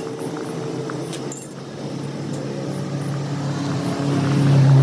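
Steady machine hum, growing louder near the end, with a short metallic clink about a second and a half in.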